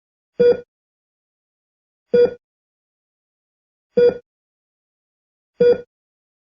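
Hospital ECG heart monitor beeping once per heartbeat: four short beeps, one about every 1.75 seconds, each a single pitched tone.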